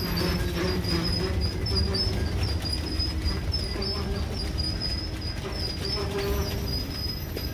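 Freight train boxcars rolling past close by: a steady low rumble of steel wheels on rail with scattered clicks, and a thin, wavering high-pitched whine running through it.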